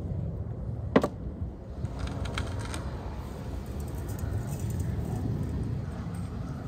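An enamel bowl set down with a single sharp knock on a wooden board about a second in, followed by faint ticks of salt being sprinkled over chopped onion, over a steady low outdoor rumble.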